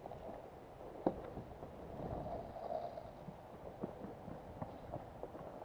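Quiet outdoor background with a few short, sharp clicks, the clearest about a second in and fainter ones later.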